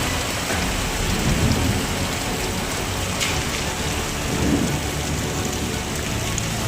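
Heavy rain pouring steadily, with low thunder rumbling about a second in and again past the middle.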